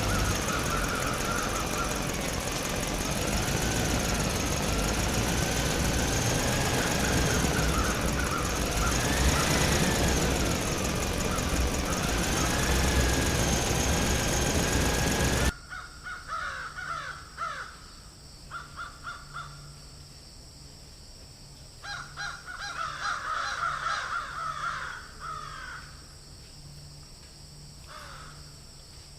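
The miniature well-drilling rig's small engine runs noisily with a wavering pitch, then stops suddenly about halfway through. Crows caw repeatedly afterwards.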